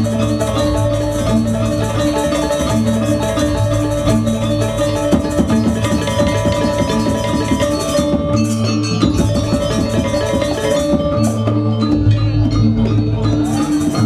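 Gamelan music accompanying Janger theatre: struck metal-keyed instruments and drums playing a steady, repeating pattern.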